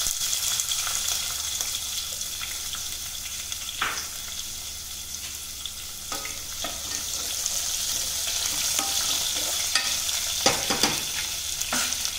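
Chopped onions sizzling as they fry in hot oil in a nonstick pot, with a few scrapes and knocks of a stirring utensil against the pot, mostly in the second half.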